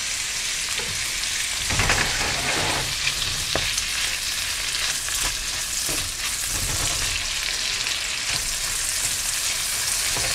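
Seasoned beef cubes sizzling in butter in a hot nonstick frying pan: a steady frying hiss, with a few soft knocks along the way.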